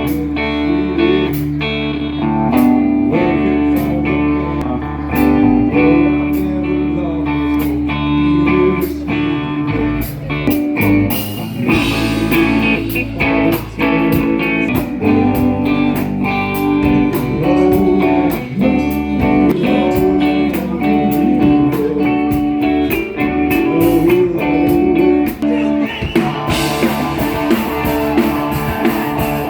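Live band playing a slow, blues-style song led by guitar. Near the end the sound grows fuller and brighter as the rest of the band comes in.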